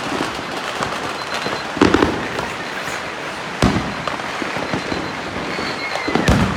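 Fireworks going off all around: a constant crackling of firecrackers, with three louder bangs about two seconds in, near the middle, and near the end.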